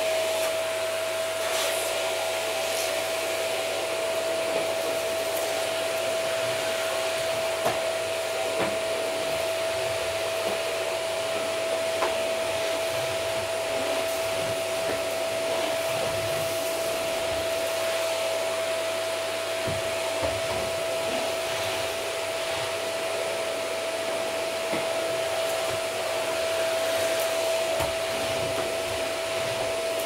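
Vacuum cleaner running on carpet: a steady, high motor whine over an even rushing hiss of airflow, with a few light knocks scattered through.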